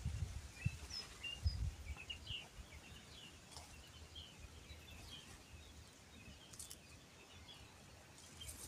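Small birds chirping with short scattered calls, over a faint outdoor background. A few low thuds come in the first two seconds.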